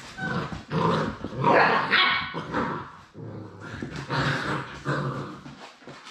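Labrador retriever puppies barking and growling while play-fighting, a string of short barks and growls that fades out near the end.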